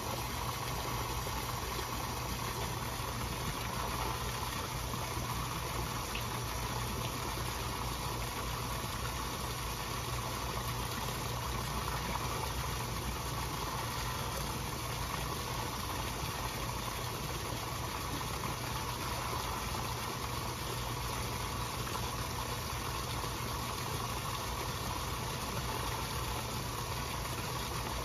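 Steady rush and splashing of koi pond water as koi feed at the surface, over a low steady hum.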